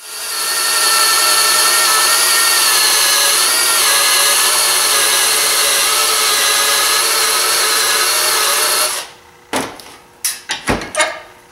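Drill spinning a wire wheel brush against the threads of a homemade spark-plug piston stop tool held in a vise, cleaning up the threads: a steady motor whine with the bright hiss of the wire bristles. It stops about nine seconds in, followed by a few clicks and knocks.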